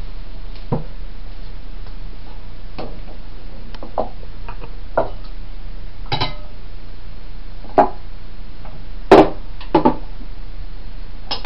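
About ten scattered knocks and clinks of kitchen utensils and cookware being handled and set down, the loudest about nine seconds in with two more close behind, over a steady low electrical hum.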